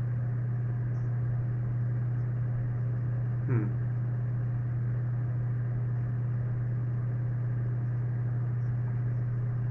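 A steady low hum at an even level, with one short sound falling in pitch about three and a half seconds in.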